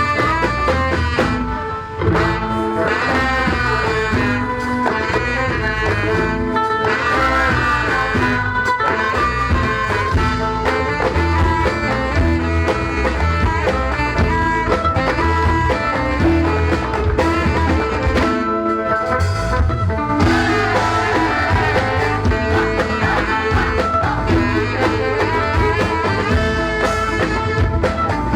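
A music ensemble playing a zapin piece, instrumental with no singing: melodic string lines over a steady low drum beat, dipping briefly about two seconds in.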